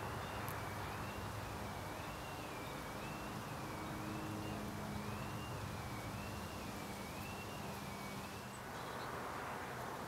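Steady outdoor background noise with a low hum, and a faint high tone that rises and falls about once a second before stopping near the end.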